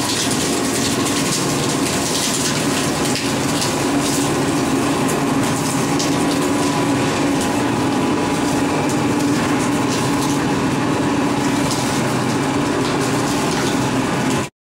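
Small motor-driven sugarcane crushing mill running with cane stalks being fed through its rollers: a loud, steady drone from the motor and gearbox with irregular crackling as the stalks are crushed. It cuts off abruptly near the end.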